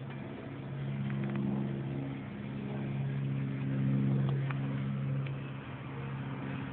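Ford Mustang giving a steady low droning hum with overtones, swelling louder twice and easing off, with a few faint ticks.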